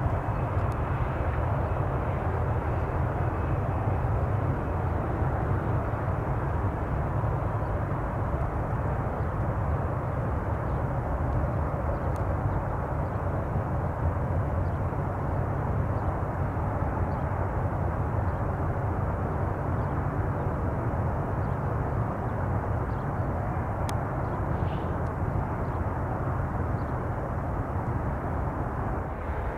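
Boeing 737 jet engines running steadily at low taxi power, a constant low rumble with a broad hiss above it.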